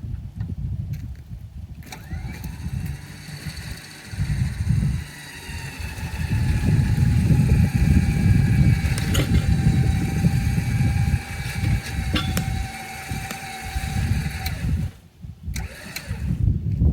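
Winch motor running steadily with a whine as it hauls a log in, starting about two seconds in and cutting off near the end.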